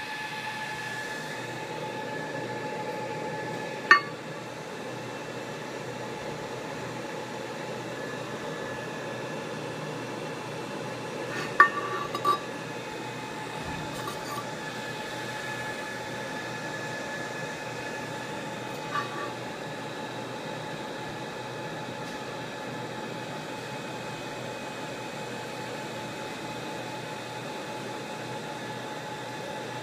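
Steady hum with a held high tone from a fiber laser marking machine, broken a few times by sharp metallic clinks of a metal cup knocking against the machine's metal worktable.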